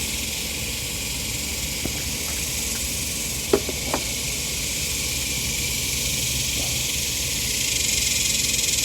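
Steady high-pitched hiss, with a few light clicks of small carburetor parts being handled and pushed into place, the two sharpest about three and a half and four seconds in.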